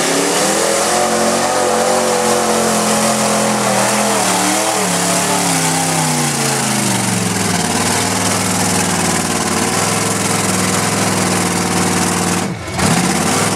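Chevrolet Silverado pickup's engine revving hard through a mud-bog pit. Its pitch climbs at the start, wavers, then falls to a lower, steady pitch as the truck bogs down in the mud, with a brief dip near the end.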